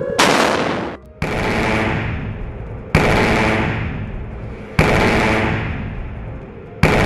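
Electromagnetic railgun test shots: five sharp, loud bangs one to two seconds apart, each trailing off in a long rumble.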